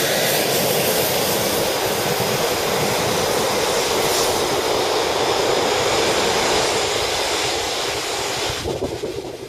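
A Eurofighter Typhoon's twin EJ200 turbofan engines running at taxi power: a loud, steady rushing jet noise with a strong hiss. It falls away sharply near the end.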